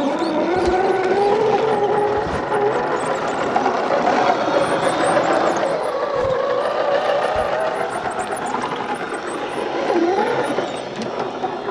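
Whine of a scale RC crawler's electric drivetrain (Novak 18.5 brushless motor driving an Axial transmission), wavering up and down in pitch as the truck crawls along a dirt trail, with a few faint low thumps.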